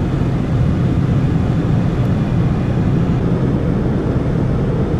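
Steady road and wind noise of a Subaru car cruising at highway speed, heard from inside the cabin.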